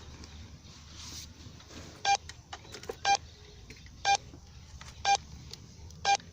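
Radio Kuwait's hourly time signal, received over shortwave radio: five short beeps evenly one second apart, starting about two seconds in, over faint receiver hiss. The pips count down to the top of the hour (9 p.m. Kuwait time).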